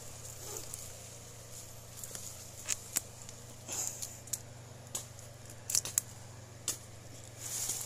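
Hand pruning shears (secateurs) cutting into a durian branch: a series of sharp snips and clicks as the blades close on the wood, some in quick pairs.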